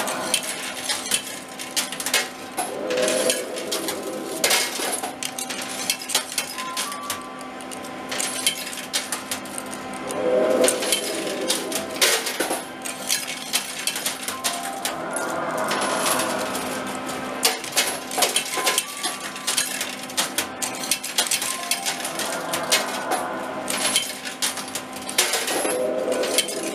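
Coins dropping and clinking inside an arcade coin pusher machine: frequent sharp clicks over a steady hum.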